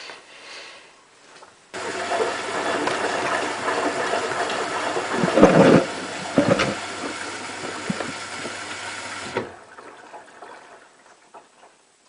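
Hotpoint Ultima WT960 washing machine filling: water rushes into the drum over a low steady hum, starting suddenly about two seconds in and cutting off abruptly near the end, as the inlet valve opens and then shuts for a rinse.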